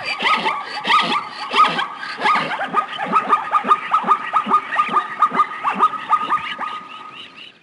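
A rapid series of short, pitched animal calls, each sliding down in pitch, several a second over a steady high background tone; they thin out and fade near the end.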